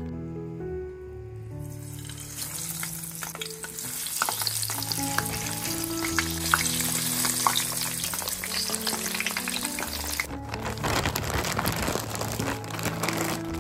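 Frozen hash browns frying in a pan of hot oil, a steady sizzle with many small crackles that cuts off sharply about ten seconds in. Near the end a plastic bag rustles.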